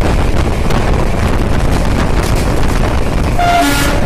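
RCF-built MEMU electric train running: a steady loud rumble of wheels on the track and rushing air, with a short horn blast near the end.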